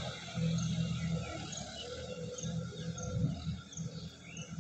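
Sonalika DI-50 RX tractor's diesel engine running under load as it pulls a rotavator through flooded paddy, its low note swelling and dipping. A bird gives a short high chirp about once every second.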